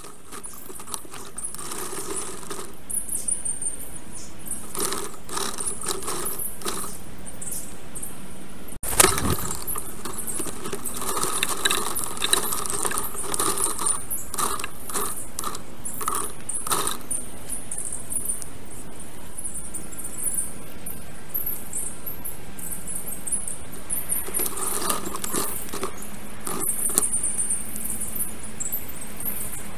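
Dense, jangling high-pitched twittering and clicking of forest birds around the nest, with a brief break and a sharp click about nine seconds in.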